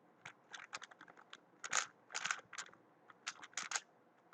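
Speedcube being turned fast during a timed solve: runs of rapid plastic clicks and clacks as the layers snap round, with short pauses between turn sequences.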